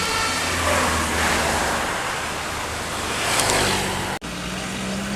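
Large bus's diesel engine running as it pulls past, with a broad rush of engine and road noise that swells twice, just as the last note of a telolet musical horn dies away. The sound drops out for an instant about four seconds in.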